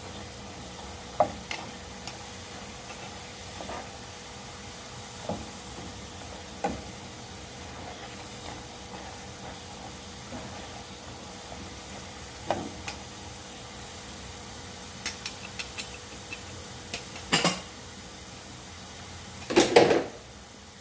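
Potato fries deep-frying in hot oil with a steady sizzle, while a utensil clinks and knocks against the pan now and then, most often and loudest near the end.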